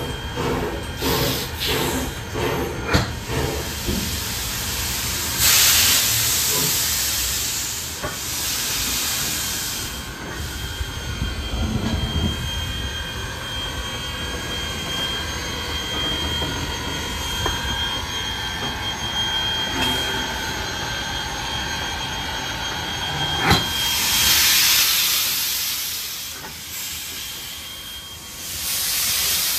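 Queensland Railways C17-class steam locomotive 974 releasing steam in several loud hissing bursts, about five, eight and twenty-four seconds in, over a steady train rumble.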